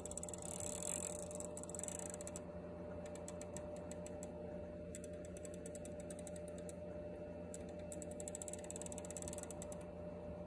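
Brass clockwork gear train of a kinetic sculpture running, giving off rapid fine ticking in spurts over a faint steady hum.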